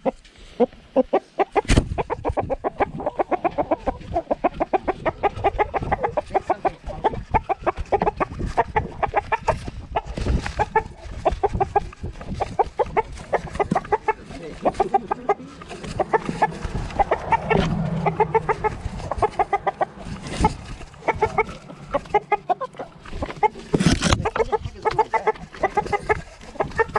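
Chicken clucking, rapid and almost continuous, picked up close by a GoPro strapped to a rooster. Several sharp knocks are heard along the way, with one about two seconds in and another near the end.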